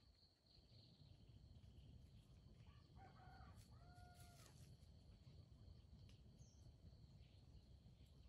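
A rooster crowing faintly once, a short crow about three seconds in, over a steady high insect drone and a low rumble.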